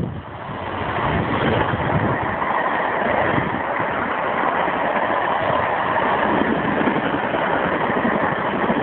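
Passenger coaches of a steam-hauled train passing at speed: a steady rumble and clatter of wheels on the rails that swells over the first second or two and then holds.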